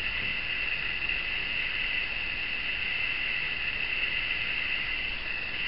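Steady background hiss with a constant high-pitched whine and no distinct events.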